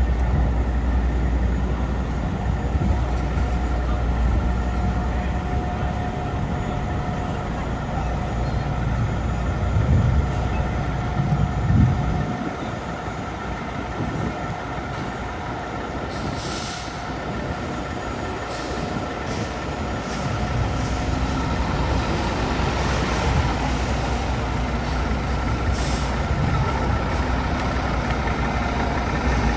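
Fire engine's diesel engine running at the firehouse door, with several short air-brake hisses in the second half as the truck gets ready to roll out. The first twelve seconds have a heavier low rumble that then eases off.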